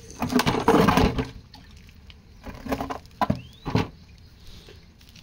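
Scraping and knocking as a plastic container is shifted about on a concrete floor. There is one long burst a moment in, then three shorter ones between about two and four seconds.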